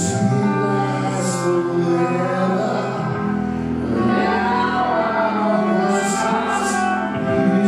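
Live rock band playing: a man singing held notes over electric guitars and drums, with cymbal hits about a second in and again near the end.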